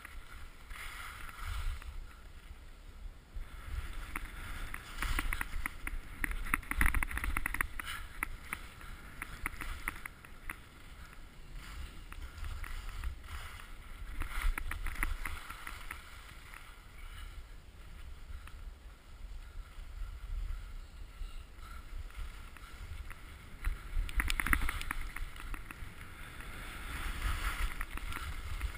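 Skis sliding and carving down a groomed piste: the edges scrape and hiss on the snow in swells that rise and fall, loudest about seven seconds in and again near the end, over a steady rumble of wind on the action camera's microphone.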